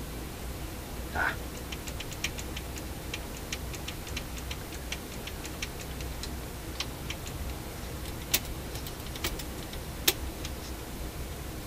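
Metal levers and cam of a Dual 1228 turntable's changer mechanism clicking as they are worked by hand while trying to free the locked mechanism. A brief squeak about a second in, then a quick run of light ticks, then scattered clicks, two of them sharper near the end.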